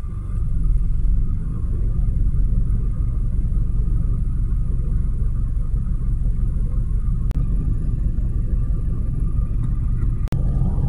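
Steady low rumble of a vehicle waiting at a traffic light, with a faint steady hum above it and a sharp click about ten seconds in.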